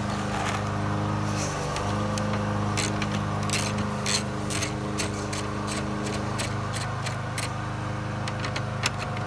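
Socket ratchet clicking in quick, irregular runs as a bolt is driven down to hold the fan shroud to the radiator, over a steady low hum.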